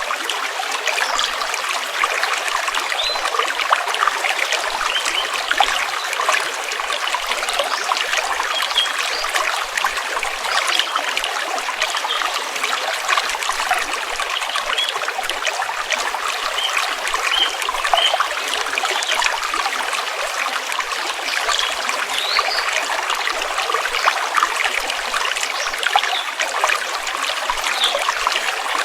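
Stream water flowing steadily: a dense, even babbling trickle full of small splashes, with no deep rumble.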